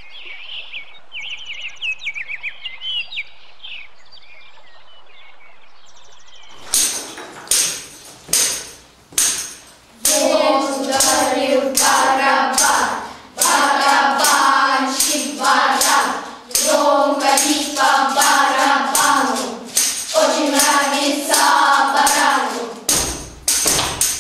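Birds chirping over a steady hiss for about the first six seconds. Then, from about seven seconds in, children's voices speaking or chanting lines in a reverberant hall.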